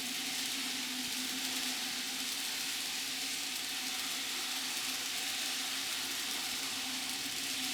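Z gauge model train running: a steady whirr from the small electric motor of the EF81 locomotive, with a wavering hum, and a hiss of tiny wheels rolling on the rails.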